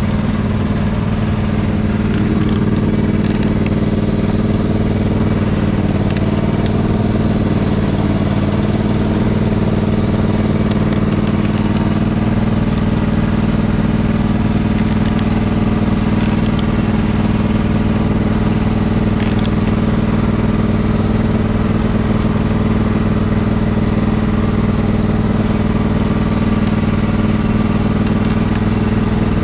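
Riding lawn mower engine running steadily under way, its pitch holding almost constant.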